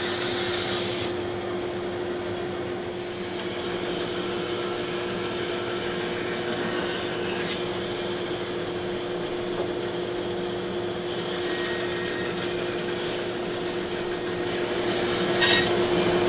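Small bandsaw running with a steady motor hum as its blade cuts a circular bowl blank out of a slab of fresh green wood.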